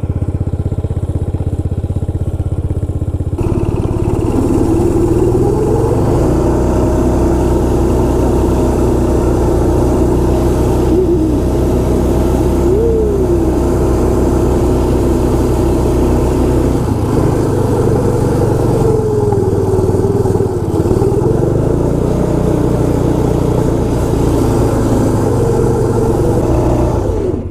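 Arctic Cat ZR 120 kids' snowmobile engine running steadily, its note shifting a few seconds in and again just past halfway.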